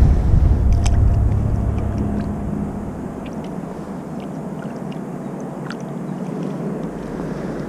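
Wind rumbling on the microphone, dying away over the first few seconds, leaving a steady low drone and a few faint short clicks.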